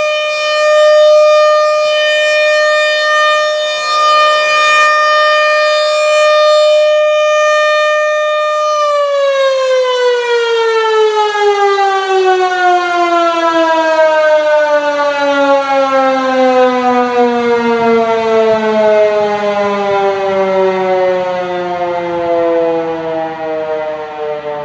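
RM-130 outdoor warning siren holding a steady tone, then winding down: about nine seconds in, its pitch starts falling and keeps sliding lower, the end of the signal as the rotor coasts to a stop.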